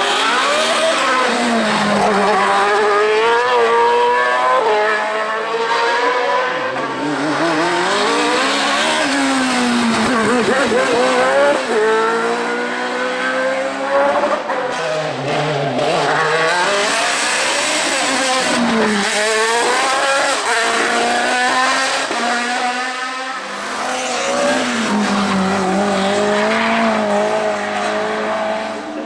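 Race car engine revving hard up the hill: its pitch climbs in a run of rising sweeps through the gears, then drops sharply several times as it brakes and accelerates again.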